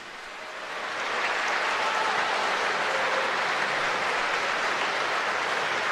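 Audience applauding at the end of a song, swelling over the first second and then holding steady.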